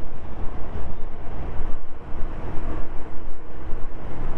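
Wind buffeting the microphone of a moving motorcycle, an uneven rushing over a low rumble of engine and road noise.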